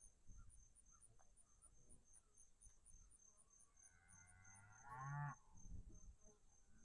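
A cow moos once, a drawn-out call of about a second and a half starting nearly four seconds in and rising in pitch toward its end. Faint, even chirping of crickets runs underneath.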